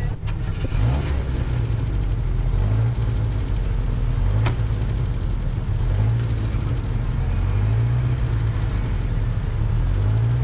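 Rally car engine idling at the start line, its pitch lifting briefly several times with light blips of the throttle. A single sharp click about four and a half seconds in.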